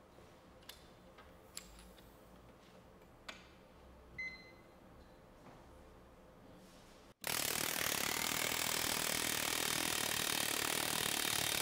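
Ingersoll Rand 119MAX long-barrel .401 shank air hammer running flat out at the brand's suggested line pressure, driving against a steel load-cell rig. After a few faint clicks, it starts abruptly about seven seconds in and runs steadily and loudly.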